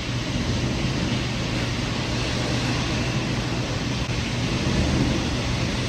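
Heavy rain pouring down onto a concrete patio and yard, a dense, steady hiss with a low rumble underneath.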